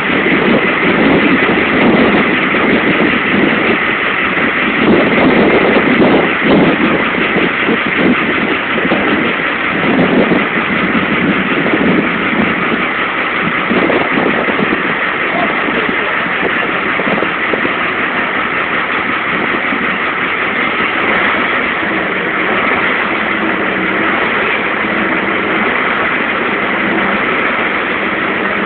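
Engine running steadily with a constant drone. Over the first half, uneven gusty surges of noise come and go.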